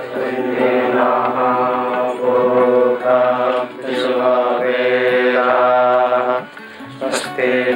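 Devotional music with a chanted, mantra-like vocal line: long held notes that break and restart every second or so. It drops away briefly about six and a half seconds in, then resumes.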